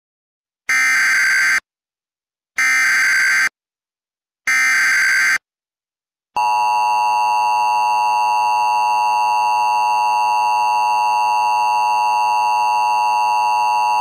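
Emergency Alert System header: three identical one-second bursts of warbling SAME data tones encoding a Fire Warning. About six seconds in, the steady two-tone EAS attention signal begins.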